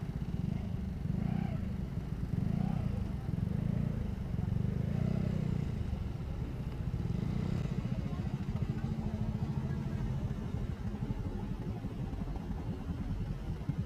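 Yamaha scooter's engine running at low speed while creeping through stopped traffic, its pitch rising and falling a few times in the first six seconds as the throttle is eased on and off, then running more evenly.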